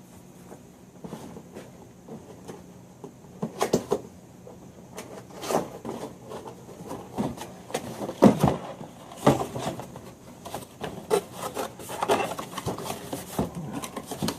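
Product box being opened and handled: irregular rubbing and scraping of packaging, with scattered light knocks, loudest around the middle.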